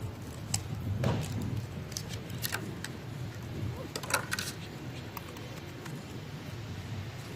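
A computer mouse and its packaging being handled while unboxed: scattered light clicks and taps, a few sharper ones about four seconds in, over a low steady background hum.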